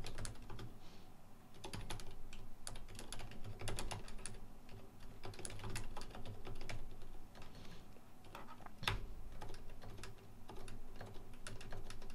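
Typing on a computer keyboard: runs of quick keystrokes broken by short pauses, with one louder key press about three quarters of the way through.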